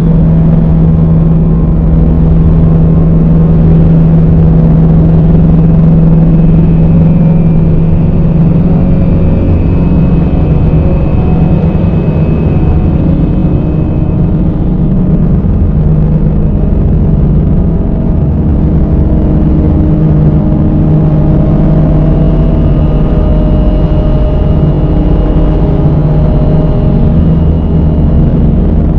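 Dark ambient drone music: a loud, dense low drone of long held tones over a rumbling noise bed, shifting slowly, with faint high held tones drifting in and out.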